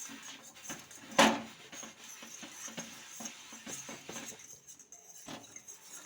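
Spoon clinking and tapping against a bowl while beaten eggs are mixed, with one loud knock about a second in and a run of small quick taps after it.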